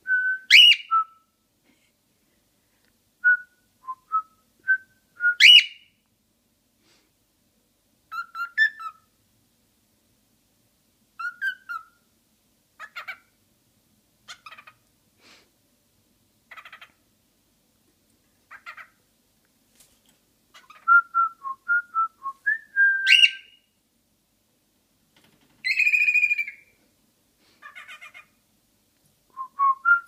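Cockatiel whistling and chirping in short groups of notes with pauses between, plus a few sharp upward-sweeping calls.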